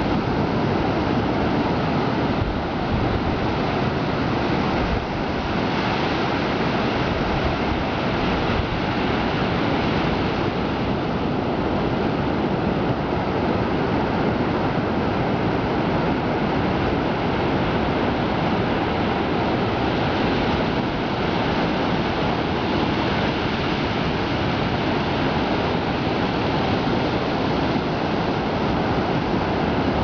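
Mediterranean Sea surf breaking and washing onto the shore in a continuous, steady rush, with wind buffeting the microphone.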